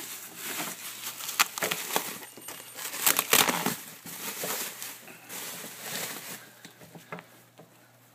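Bubble wrap crinkling and rustling as it is handled and pulled away from a large printer, with scattered sharp clicks and crackles. Loudest about three seconds in, then dying down near the end.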